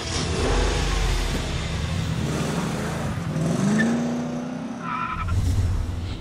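Sound effect of a car engine revving, its pitch rising about three seconds in, with a brief tire squeal about five seconds in.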